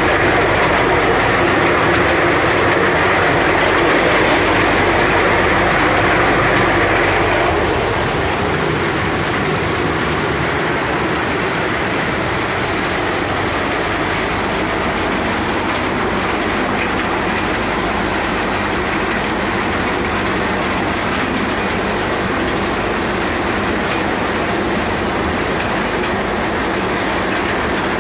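Plastic-bottle crushing machine running with a steady, loud mechanical clatter as its rotor crushes plastic bottles. About eight seconds in, the sound drops slightly and turns duller.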